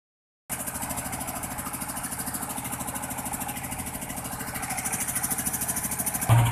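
An engine idling with a fast, even pulse. Near the end, heavy bass music from the DJ speakers starts suddenly.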